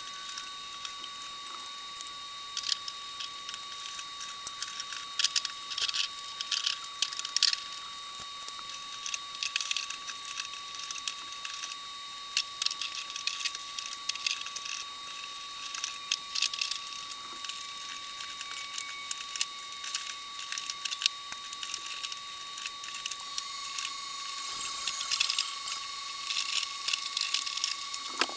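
Scattered small clicks and ticks of pendant light cords and canopies being handled as the cords are coiled up to take up slack, over a steady hiss with a faint steady high tone. A louder rustling stretch comes near the end.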